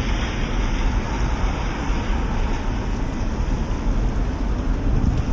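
Strong wind rushing steadily around a fire whirl during a wildfire, with a heavy, uneven low rumble of wind buffeting the microphone.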